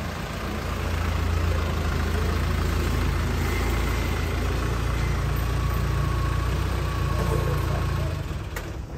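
A vehicle's engine and road noise while driving, a steady low rumble that builds about a second in and falls away near the end.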